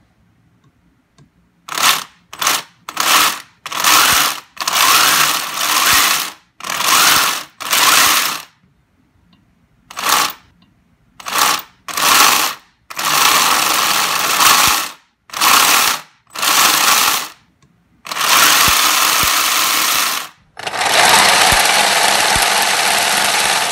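RC snowmobile's motor driving its plastic track in a series of short throttle blips, a loud mechanical whirring rattle. Near the end the runs get longer, two to three seconds each.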